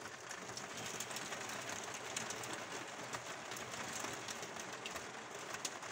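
Rain falling on the glass of a roof window: a steady hiss with scattered faint ticks of drops striking the pane.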